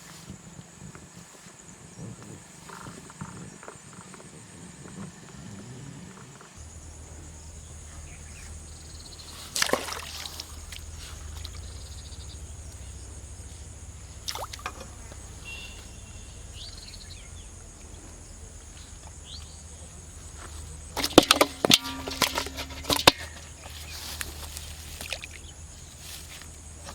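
Water splashing and sloshing in a canal: a splash about ten seconds in, another smaller one a few seconds later, and a loud cluster of splashes near the end, over a steady high outdoor hiss.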